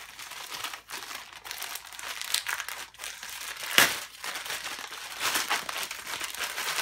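Plastic mailing bag crinkling as it is handled and torn open, with a sharp rip just before four seconds in.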